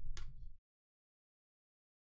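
A short swish of trading cards being slid in the hand near the start, then the sound cuts off to dead silence.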